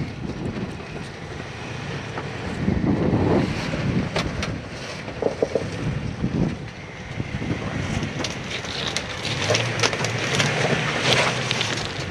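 Pickup truck driving over a wet, muddy off-road trail: low engine rumble under a steady wash of tyre and water noise, with scattered knocks and clicks from the ground and the body.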